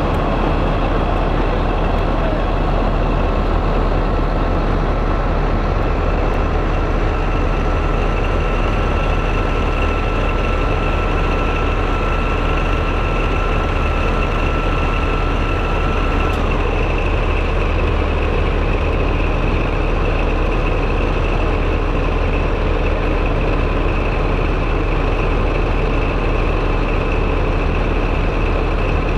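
Diesel locomotive engine idling steadily with a constant high whine. A second, lower whistle-like tone joins about a quarter of the way in and cuts off suddenly a little past halfway.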